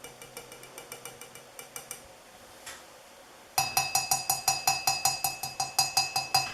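Sheet-metal ceiling fan canopy being tapped rapidly, ringing with a metallic tone, about seven taps a second. The tapping is faint at first and much louder from just past halfway, demonstrating that the canopy is metal.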